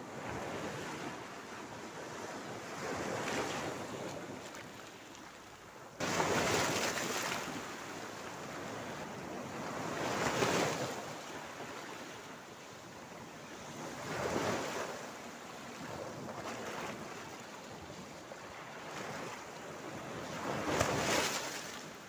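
Sea waves breaking and washing over a rocky shoreline, rising and falling in surges every few seconds. One surge comes in abruptly about six seconds in, and the loudest come around six, ten and twenty-one seconds in.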